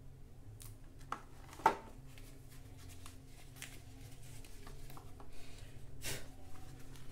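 Unboxing handling noise: a soft drawstring pouch and a clear plastic packaging tray being handled and the pouch opened, with light rustling and a few sharp taps, the loudest about a second and a half in. A steady low hum runs underneath.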